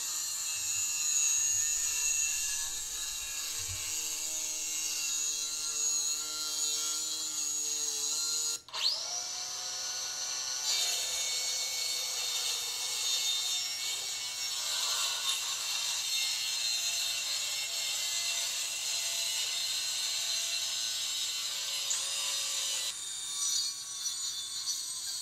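Craftsman cordless circular saw running and cutting through plywood with a steady high whine. About nine seconds in it cuts off and spins back up with a rising whine.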